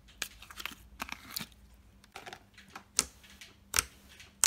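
Thick, glossy slime being stretched out of its plastic tub and pressed and folded by hand, making an irregular string of sharp clicks and pops, the loudest about three seconds in and near the end.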